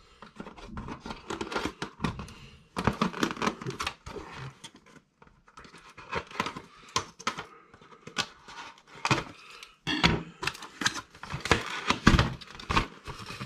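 RC car packaging being cut and pulled apart by hand: plastic and cardboard crinkling and tearing, with irregular clicks and knocks throughout.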